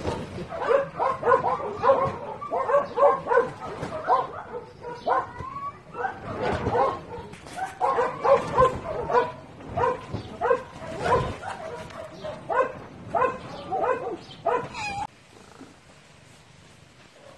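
A dog yapping rapidly in a string of short high yaps, about three or four a second, some rising at the end, cutting off suddenly near the end.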